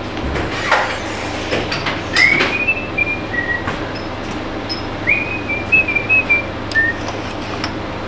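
Light clicks and knocks of hand tools being handled, over a steady low hum. Two short, high, squeaky chirps come about two and five seconds in.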